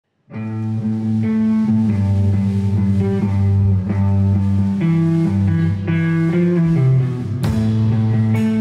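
Rock band starting a song: electric guitar and bass guitar play an instrumental intro, held chords over a moving bass line. A loud hit near the end, as the drums come in.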